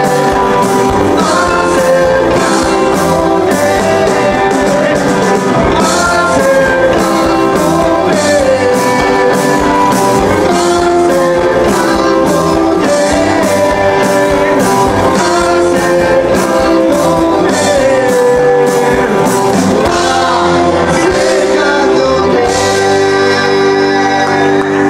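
Rock band playing live: electric guitars and bass over a steady drum beat, with a singer's voice on top.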